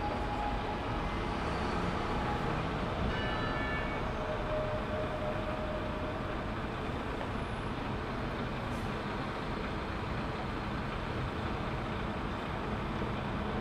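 Steady noise of city street traffic, with a short bell-like ring about three seconds in.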